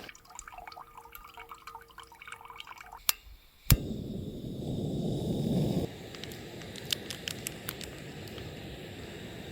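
Water dripping and pouring while coffee is being made, then a sharp click a little under four seconds in and a steady rushing hiss, like a camping gas stove being lit; the hiss is louder for about two seconds, then drops to a lower, even level.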